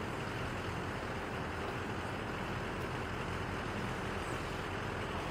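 Steady outdoor background noise: an even hiss and rumble with no distinct events.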